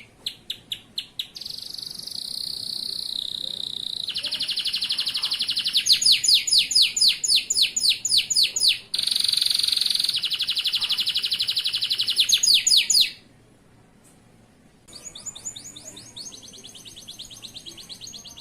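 Male canary singing a long, loud song of rapid trills and fast runs of repeated down-sweeping notes. The song breaks off for about two seconds, then starts again more softly.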